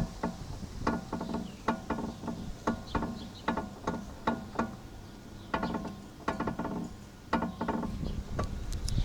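VW Passat B5 suspension arm squeaking: many short, pitched creaks, about two a second and some in quick pairs, as the suspension moves. The squeak comes from worn suspension arms; it was cured by replacing the load-bearing arm and the upper rear arm.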